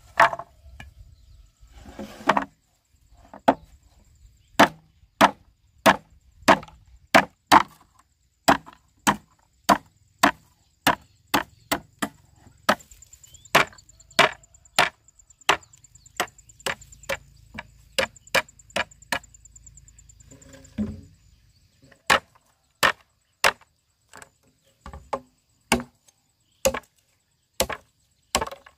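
Machete chopping into a bamboo pole: a steady run of sharp wooden strikes, more than one a second, with a short pause about three-quarters of the way through.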